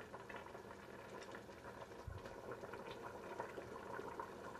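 Stockpot of meat and vegetables simmering in their juices: faint, steady bubbling and crackling, with one soft low thump about two seconds in.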